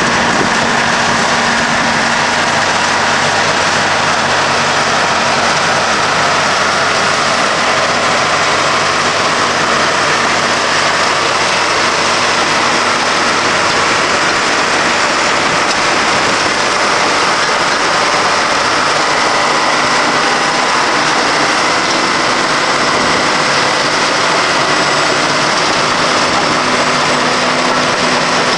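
John Deere 750C crawler dozer's diesel engine running steadily, with an even mechanical drone and no change in speed.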